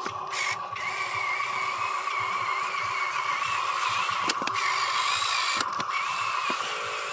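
Small electric motor and plastic gearbox of a Huina RC dump truck whining steadily as it drives, the pitch wavering slightly, with a few sharp clicks along the way.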